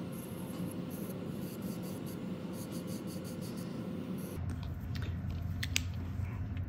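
Electric nail drill with a diamond bit grinding loose skin at the cuticle: a scratchy rasp over a faint steady motor whine. About four seconds in, it gives way to a steady low hum with a few sharp clicks.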